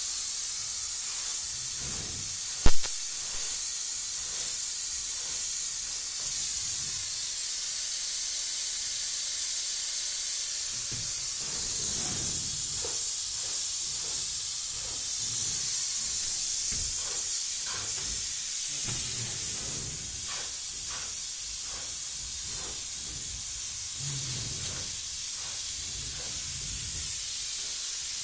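Electrostatic powder-coating gun on low-pressure compressed air, hissing steadily as it sprays high-gloss black powder onto hanging parts. There is one sharp click a few seconds in, and scattered soft knocks later on.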